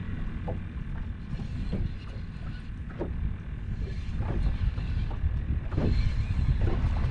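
Wind rumbling on the microphone, with water slapping against the aluminum hull of a small bay boat in short, irregular slaps.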